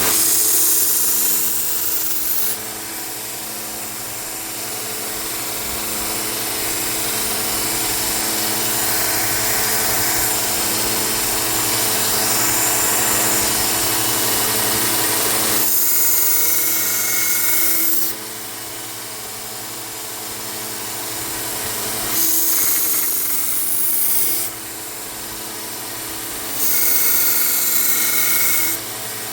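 Small knife-sharpening belt sander running steadily, with a blade pressed to the abrasive belt in four grinding passes of about two seconds each: one at the start and three in the second half.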